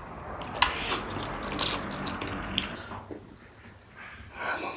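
Spicy ramen noodles being slurped and chewed, a wet sucking sound with a few sharp smacks, dying down about three seconds in.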